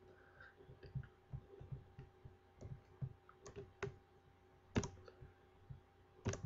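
Computer mouse clicking: scattered soft clicks, with a few sharper, louder clicks in the second half.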